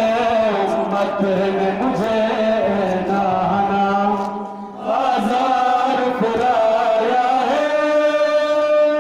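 Male mourners chanting a Muharram lament in long, sustained lines, with a brief pause for breath about four and a half seconds in.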